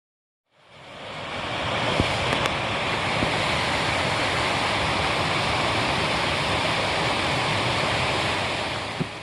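Steady rushing of water from a cascade on a mountain creek, fading in after a brief silence and easing off near the end, with a few faint clicks over it.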